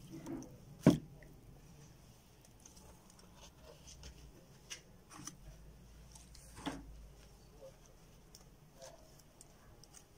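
Handling noises as a cement-smeared plastic bucket and a plastic bin bag are moved about: one sharp knock about a second in, a smaller knock later, and scattered light clicks and rustles.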